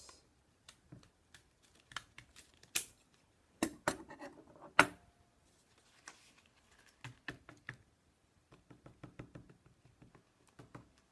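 Paper being cut with scissors and handled at a table: a few sharp clicks about three to five seconds in, the loudest near the five-second mark, then quieter clusters of small ticks and paper rustles.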